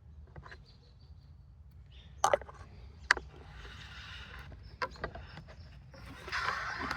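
Handling of beehive parts at the bottom board: two sharp knocks a little under a second apart, a lighter knock, and short stretches of scraping in between.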